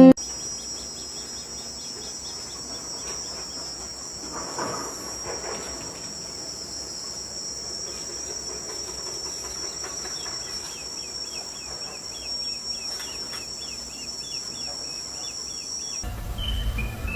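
Steady, high-pitched drone of insects, with a run of quick repeated chirps partway through and a low hum coming in near the end.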